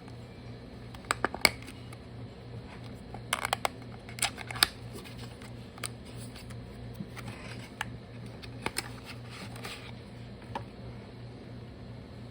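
Clicks, taps and rustles of a small product box and its packaging being opened and handled by hand, loudest in the first five seconds, over a steady low hum.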